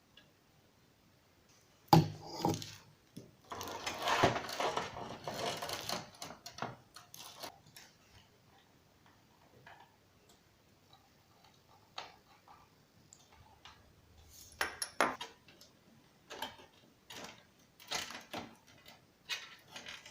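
Hands handling computer parts and case hardware: a sharp knock about two seconds in, a few seconds of rustling and scraping, then scattered clicks and taps.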